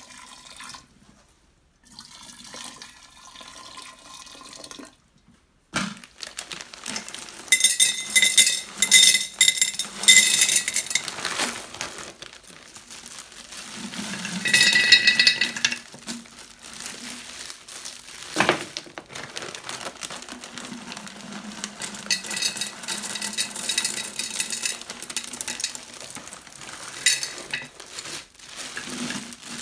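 Frozen ume plums and rock-sugar lumps clattering into a large glass jar as they are tipped from a crinkling plastic bag, in several bursts of rustling and clinking.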